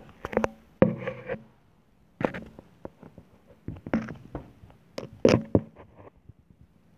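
Handling noise: irregular clusters of short knocks, clicks and scrapes, several bunches a second or so apart, loudest about a second in and past five seconds in.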